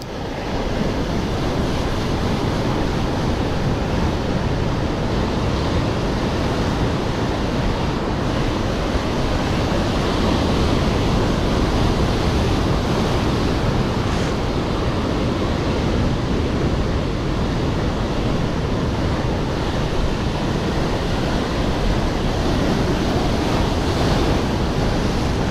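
Sea surf with wind on the microphone: a steady, loud noise that comes up within the first second and holds without a break.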